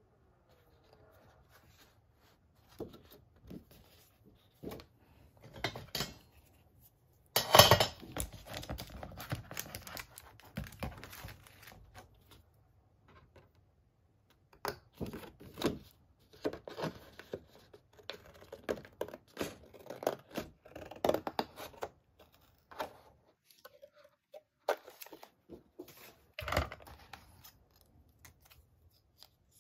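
A sheet of printed paper rustling as it is handled, loudest about a quarter of the way in, then scissors snipping through it in a run of short cuts to free a strip of text.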